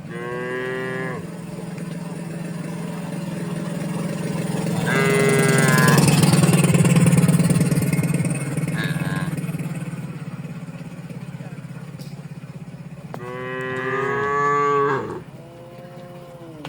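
Cattle mooing: a call at the start, another about five seconds in, and two back to back near the end. Under the calls runs a steady low drone that is loudest in the middle.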